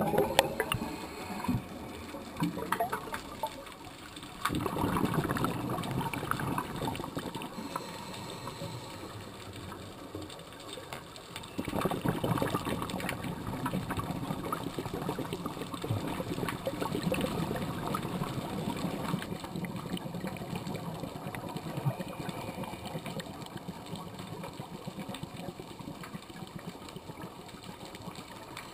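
Scuba diver's exhaled air bubbling out of a regulator, heard underwater. There is a burst of bubbling about four seconds in and a longer one from about twelve seconds, with a low steady underwater hiss between.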